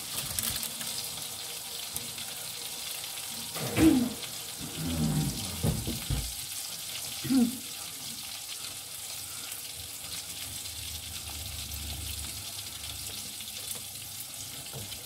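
Mushrooms frying in a pan on the stove, a steady sizzle, with a few short louder sounds about four to seven and a half seconds in.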